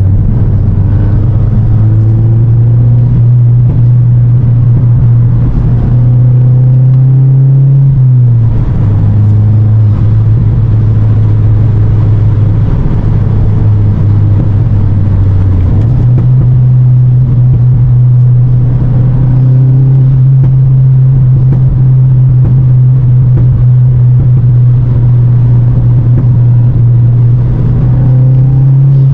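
2023 Volkswagen Golf GTI (Mk8) 2.0-litre turbocharged four-cylinder heard from inside the cabin: a steady, low engine drone over road noise. The drone climbs slowly, drops suddenly about eight seconds in, then steps back up about halfway through and holds steady.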